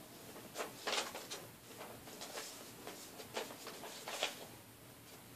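Paper airplane being folded and creased by hand: soft, irregular paper rustles and crinkles.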